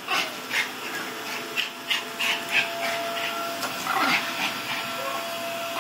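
A small dog barking and yapping in quick short calls, about two or three a second, at a running canister vacuum cleaner, whose motor hums steadily underneath.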